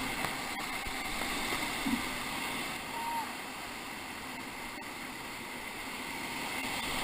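Steady rushing of whitewater river current around a raft, with a couple of brief faint voice sounds in the middle.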